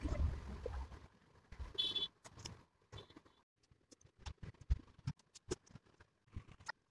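Irregular light taps and clicks with some rustling, from drawing and colouring tools and paper being handled on a bed, with a brief high squeak about two seconds in.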